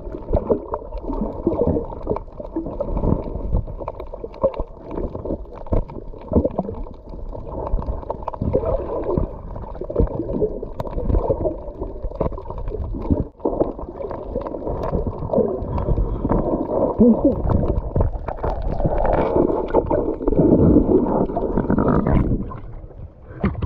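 Underwater sound picked up by a camera held below the surface. Muffled, rumbling water noise is broken by scattered clicks and knocks while a metal rod probes a reef hole for an octopus. Near the end the sound changes as the camera comes up out of the water.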